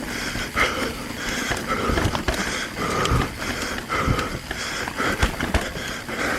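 Mountain bike rattling and knocking over rough, rocky trail, with tyre and wind noise. The rider is breathing hard, about two breaths a second.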